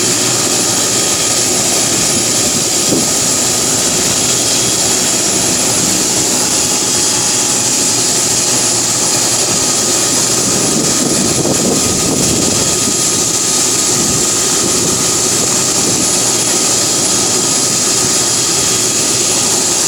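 MD 500 helicopter running close by: its turbine and rotor make a loud, steady sound with a high whine over the rotor noise.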